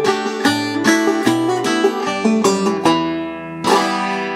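Mid-1970s Vega-Martin VIP five-string banjo played clawhammer style: quick, evenly paced picked notes that slow to a held note about three seconds in. A final strummed chord near the end rings out, closing the tune.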